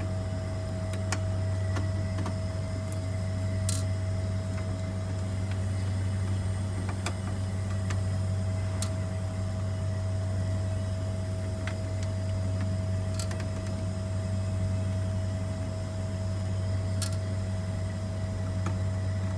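Steady low mechanical hum with a constant tone, broken by about half a dozen sharp, isolated clicks and ticks as screws are taken out of a fan control panel's master controller.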